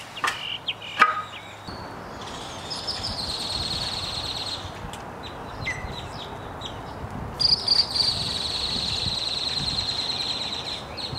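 Outdoor ambience with an insect's high, steady buzz that comes in two spells of a few seconds each. Some sharp clicks and knocks sound near the start and again about eight seconds in.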